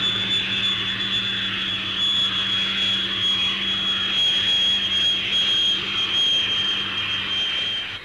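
Jet aircraft engine heard on an old film soundtrack: a steady high whine over a hiss, with a low hum underneath.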